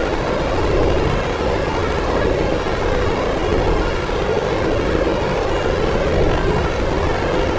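Dark ambient drone: a loud, steady, dense rumbling wash of sound with no beat or melody, its weight in a low-middle band over a deep rumble.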